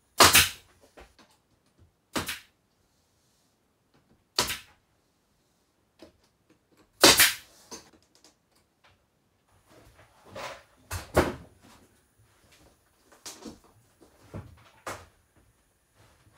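Pneumatic nail gun firing into thin RV ceiling paneling: a series of sharp shots every two to four seconds, with lighter knocks and taps of the panel and tool in between.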